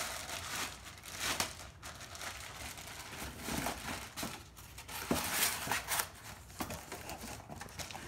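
Clear plastic packaging crinkling and rustling as it is handled around a cast iron baker, with a few knocks from cardboard boxes being moved, the strongest about five seconds in.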